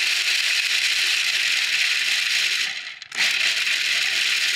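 Food processor grinding unsalted pistachios toward a fine powder, the nuts rattling hard against the bowl and blade. It cuts out for a moment about three seconds in, then runs again.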